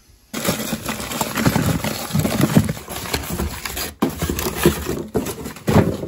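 Cardboard boxes and loose parts being rummaged through by hand: irregular rustling and knocking, with a brief break about four seconds in.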